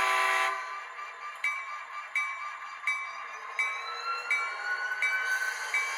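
Sound decoder of an HO-scale SD40-2 model diesel locomotive: a short horn blast, then the bell ringing steadily about once every 0.7 s, while a whine climbs slowly in pitch as the engine sound revs up to move off.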